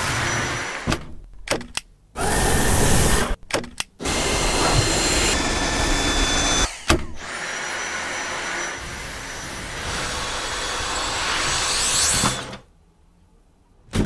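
Cordless stick vacuum cleaner running with a steady high whine, heard in short clips that cut in and out abruptly. It stops about a second and a half before the end.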